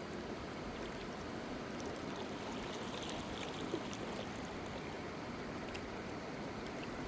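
Steady rush of running water, with small drips and splashes ticking over it.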